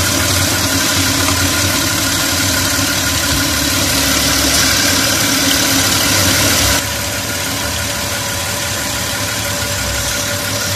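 Audi 3.6 FSI V6 engine idling steadily with its oil filler cap off, after a repair to its PCV (crankcase ventilation) system. The sound drops a little in level about seven seconds in.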